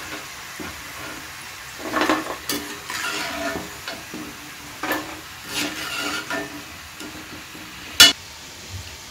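Shakkarpare dough pieces sizzling steadily in hot oil in a kadai over a low flame. A steel slotted spoon scrapes and clinks against the pan several times as the fried pieces are lifted out. A sharp metal knock comes about eight seconds in.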